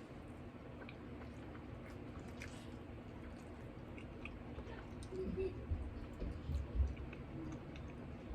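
A person chewing food close to the microphone, with small wet mouth clicks, getting a little louder about halfway through.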